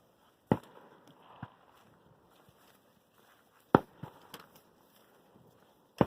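Fireworks going off: three sharp bangs about three seconds apart, each followed by a few fainter pops.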